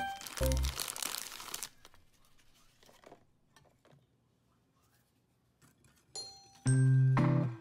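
Paper packet of instant pudding mix crinkling as the powder is shaken out of it, a rustling hiss lasting under two seconds, followed by a few faint ticks and then near quiet. Background music comes in loudly near the end.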